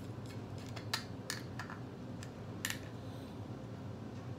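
A metal fork tapping and scraping against a sardine tin's lid as it is pried open after the pull-tab broke off: a handful of sharp, scattered clicks a few tenths of a second to half a second apart.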